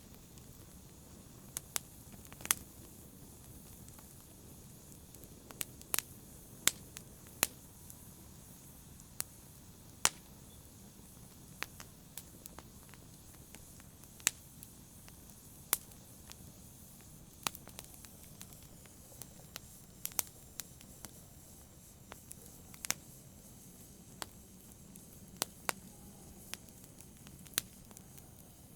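Wood fire crackling: sharp, irregular pops and snaps, about one a second, over a faint low hiss.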